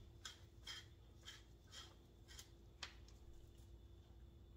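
Handheld spice grinder being twisted, grinding seasoning: faint crunching strokes about twice a second that stop about three seconds in.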